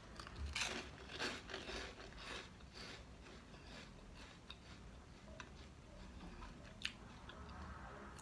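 Person biting into and chewing a TGI Fridays puffed-corn onion-ring snack, crunchy but airy. Several loud crunches come in the first three seconds, then quieter chewing, with a single sharp click near the end.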